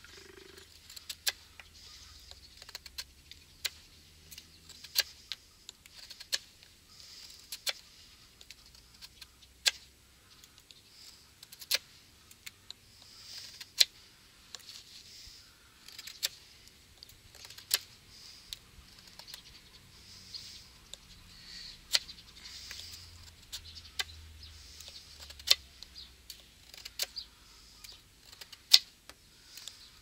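Swiza pocket knife whittling dry maple: the blade cuts shavings off the stick in repeated strokes, heard as irregular sharp clicks and short scrapes about one or two a second.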